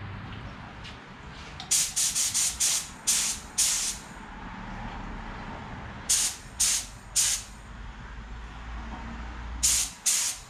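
Gravity-feed paint spray gun fired in short hissing bursts of air and paint, test-spraying its pattern onto a scrap board. About seven quick bursts come in the first four seconds, three more around six to seven seconds in, and two near the end.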